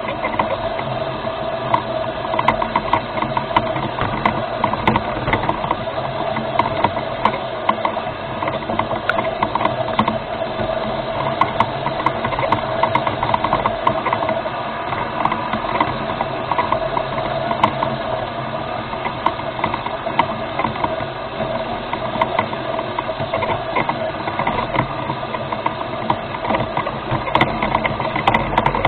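Small remote-controlled rover's electric drive motors and gears whining steadily, with a constant fast rattle and clatter from the running gear.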